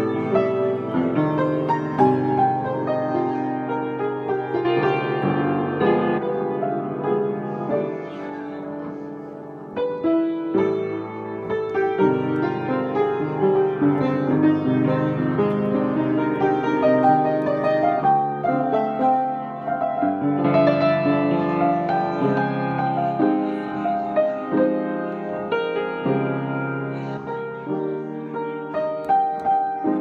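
Background piano music: a continuous flow of notes, briefly softer a little before ten seconds in.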